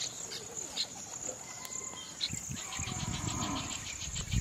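Steady high-pitched drone of insects in the field, with scattered short bird-like chirps and a rapid run of ticks at about eight a second in the second half. Low thumps come through now and then, the loudest at the very end.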